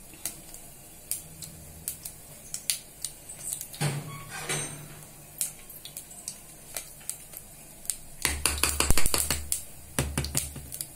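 Mustard seeds popping in hot oil in a clay pot: scattered sharp pops that come thick and fast near the end. The spluttering is the sign that the tempering oil is hot and the seeds have burst.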